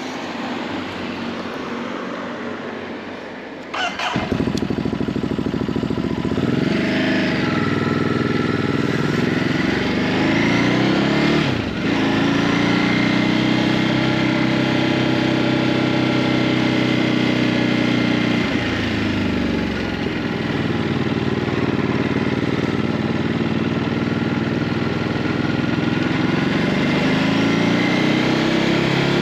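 Ducati Hypermotard 950's L-twin engine on its stock exhaust, louder after a sharp click about four seconds in, then pulling and easing off with its engine speed rising and falling, including a sudden dip about twelve seconds in.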